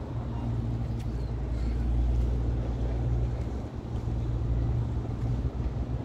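Wind buffeting the microphone: a low rumble that swells about a second in and eases off near the end.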